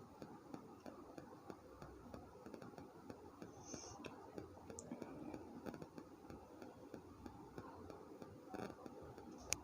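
Faint handling noises with scattered small ticks, and one sharper click near the end.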